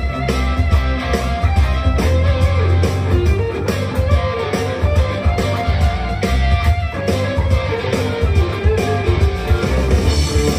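Electric guitar, a Firefly SG copy played through an amplifier, picking a melodic lead line with bent notes over a backing track with drums and bass.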